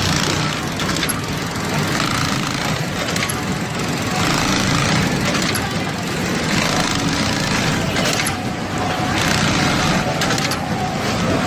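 6040 computerized pattern sewing machine stitching a shoe-upper piece in its template: a steady mechanical clatter of the needle running at speed.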